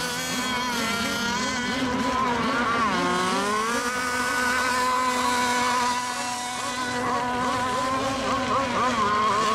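Racing radio-controlled model boats running at speed, their engines giving a high steady whine. The pitch drops about three seconds in as they throttle back, then climbs again and holds.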